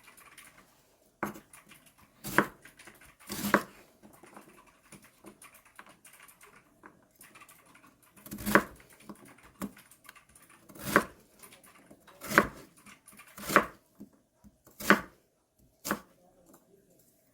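Kitchen knife cutting through radish and hitting a cutting board: about nine sharp chops, each a second or so apart, with a pause of several seconds in the middle.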